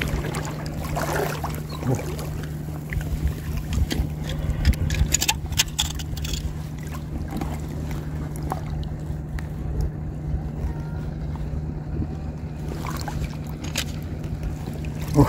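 Rubber boots wading through shallow seawater, sloshing and splashing with each step, over a steady low hum.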